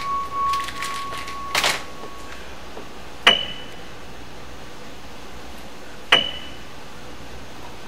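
Sparse keyboard music: a held note fades away, then two single high notes are struck about three seconds apart.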